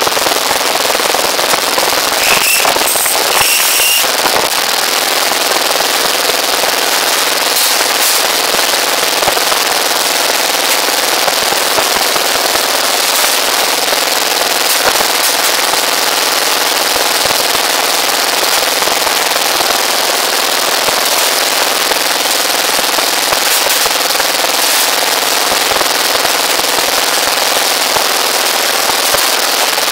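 Small engine running steadily with a rapid popping exhaust, driving a rebar bending machine as steel bars are bent. A few sharp metallic clinks sound about two to four seconds in.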